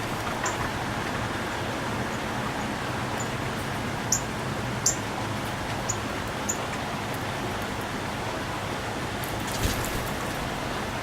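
Birds giving short, high chirps, about half a dozen spread out over several seconds, above a steady background hiss. A brief rustle or click comes near the end.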